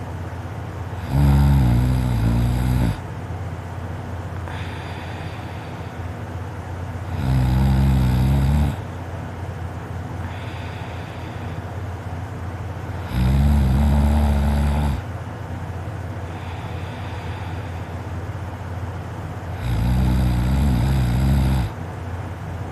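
A sleeping man snoring loudly: four long, rattling inhaled snores about six seconds apart, with softer breaths out between them.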